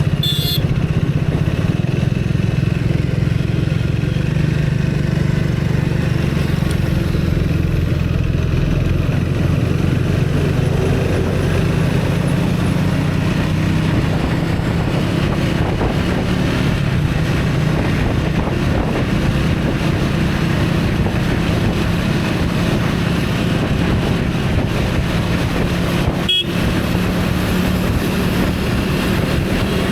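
Motor vehicle engine running steadily with road noise, with a short high-pitched horn toot just after the start and another near the end.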